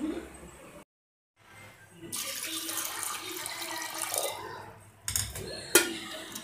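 Stream of water pouring into an aluminium pressure cooker of chickpeas, a steady splashing pour that stops about five seconds in, followed by a couple of sharp metal knocks as the cooker is moved.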